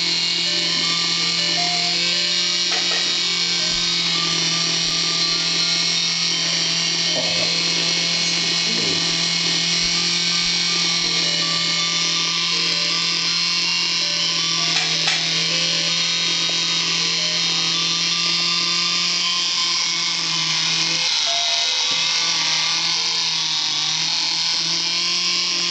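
Small battery-powered electric motor of a motorized toy teddy bear running steadily and very loud, a lawnmower-like drone as it drives the bear's pinwheel. A tinny toy melody plays faintly under it.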